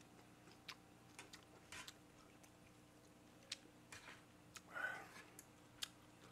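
Faint eating sounds: scattered light clicks of a metal spoon against the dishes and quiet chewing, with a brief louder mouth noise about five seconds in.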